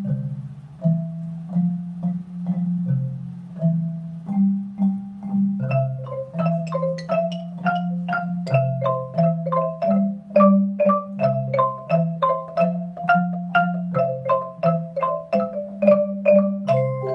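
Orff-style mallet-instrument music: a repeating low bass line of struck bars with higher notes above it. About five and a half seconds in, a busier pattern of quick struck notes joins.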